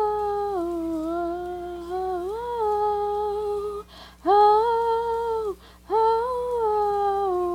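Unaccompanied solo voice singing long held "oh" notes that slide gently between pitches, with two short breaks.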